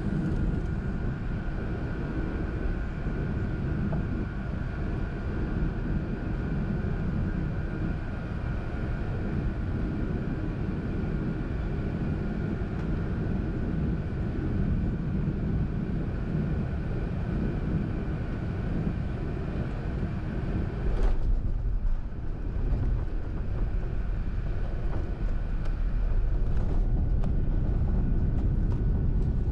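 Airbus A380 cabin noise at a window seat on the upper deck as the aircraft comes in to land: a steady rumble of engines and airflow with a faint steady whine. About two-thirds of the way through a sharp knock comes, after which the sound turns to a deeper rumble that grows a little louder near the end.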